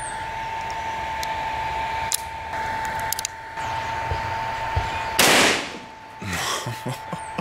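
A .357 Magnum revolver firing a single .38 round into a row of toilet-paper rolls: one sharp, loud shot about five seconds in, ringing out briefly.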